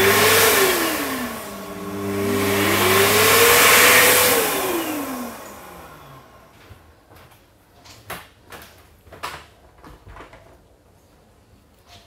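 Mediclinics electric hand dryer blowing twice as a hand is held under it: each time the motor's whine rises, runs at full speed with a loud rush of air, then winds down when the hand is taken away. The first run winds down about a second in, the second starts about two seconds in and winds down around five seconds. After that come a few light knocks and clicks.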